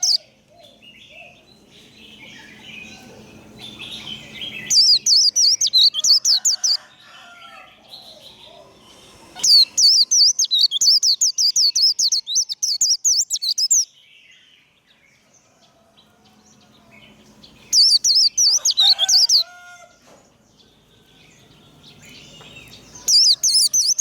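White-eye (vành khuyên) singing its rapid, high twittering 'líu' song in four bursts of a few seconds each, with softer chirps between them.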